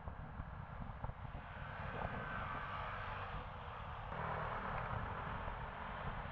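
Road traffic passing on a busy highway: a low rumble with a rushing tyre hiss that swells about two seconds in and again about four seconds in.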